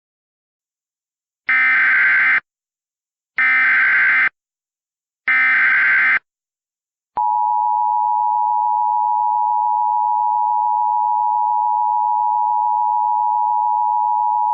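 Emergency Alert System header: three short bursts of warbling digital data tones about two seconds apart, then the steady two-tone EAS attention signal from about seven seconds in, marking the start of an alert.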